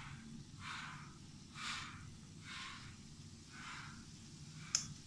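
Hot mustard oil in a kadhai sizzling in short bursts, about one a second, as dabs of besan pakora batter are dropped in by hand to fry. A single sharp click comes near the end.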